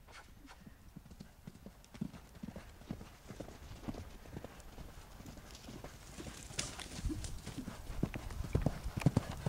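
Hoofbeats of a grey horse moving quickly over sand arena footing, a run of dull thuds that grow louder near the end as it comes closer.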